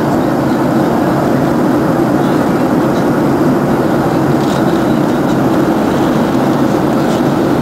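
Steady cabin roar of a Boeing 737-700 in its climb after takeoff, heard from a window seat over the wing: CFM56-7B engine noise mixed with airflow rushing past the fuselage.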